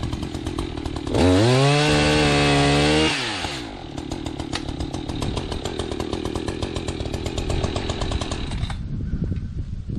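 Two-stroke chainsaw idling, revved up to high speed about a second in and held for about two seconds, then dropping back to idle. Its sound falls away suddenly near the end.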